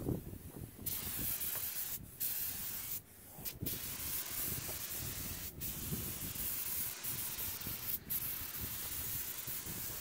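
Compressed-air paint spray gun hissing as it sprays epoxy primer. The hiss starts about a second in and runs in long passes, cut off briefly a few times as the trigger is released.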